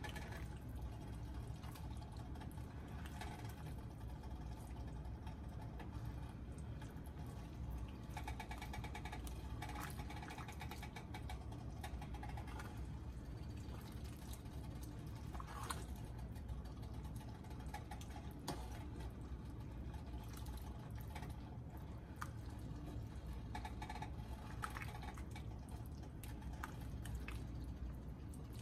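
Pot of chicken and dumplings simmering on low heat: soft bubbling and scattered pops over a steady low hum.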